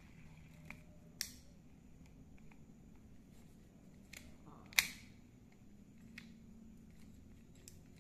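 Iroly Kiyomi 4000 spinning reel being handled and its rotor turned: scattered sharp mechanical clicks, two louder ones about a second in and just under five seconds in.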